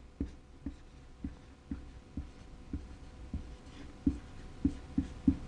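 Dry-erase marker writing on a whiteboard, with soft taps about twice a second.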